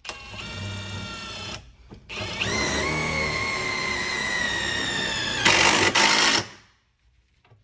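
18-volt cordless impact driver driving a winged self-drilling screw through plywood into steel. A short run of the motor whine, a brief stop, then about three seconds of steady whine as the drill point cuts, ending in a loud rattling burst of about a second as the impact mechanism hammers the screw head down, then it stops sharply.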